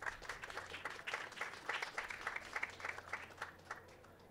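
Audience applauding, the clapping dying away shortly before the end.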